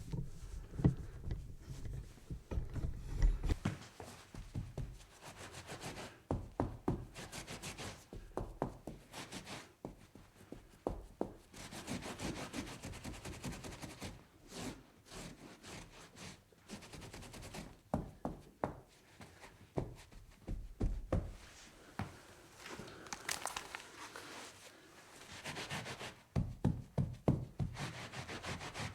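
Spills being wiped and scrubbed off a tabletop: uneven rubbing strokes broken by many small knocks and scrapes.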